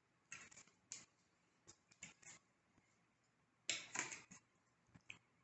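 A metal knife scraping against the inside of a metal baking pan as baked biscuits are pried loose, with light taps as biscuits are set down on a marble board. Short scrapes come every second or so, with the longest, loudest run of scraping about four seconds in.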